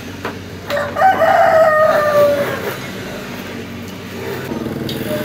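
A rooster crowing once, a single call about two seconds long that drops slightly in pitch at the end, over a steady low mechanical hum.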